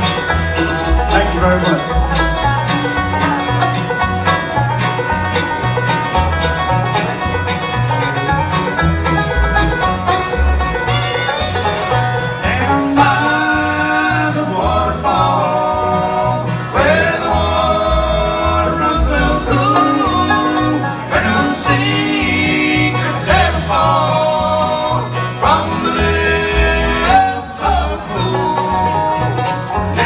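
Bluegrass band playing live on banjo, acoustic guitar, upright bass and fiddle. The first dozen seconds or so are instrumental; after that two voices sing over the band.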